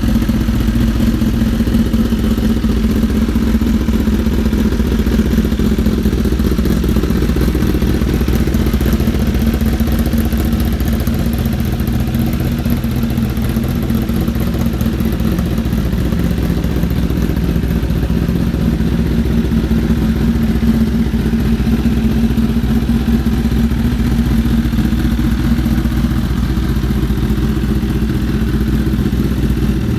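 Kawasaki ZX-10R inline-four engine running steadily through an aftermarket M4 GP exhaust, holding an even idle with no revs.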